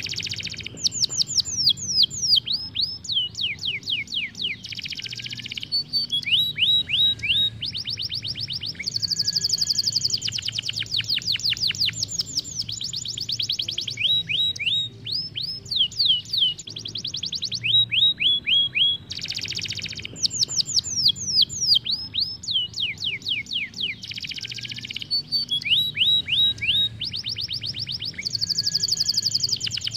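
Isabel canary singing a long, continuous song of rapid trills and rolls: fast runs of repeated notes, many falling in pitch, switching from one run to the next every second or two.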